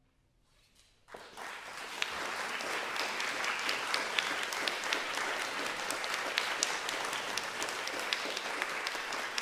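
Audience applause breaking out about a second in after a brief silence, then steady clapping with distinct individual claps.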